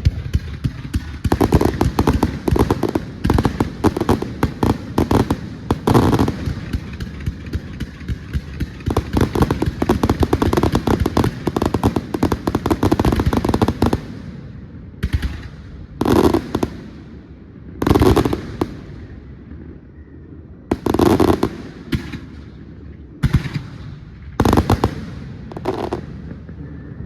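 Aerial fireworks bursting in a dense rapid string of bangs and crackles, then thinning about halfway to single heavy booms every second or few.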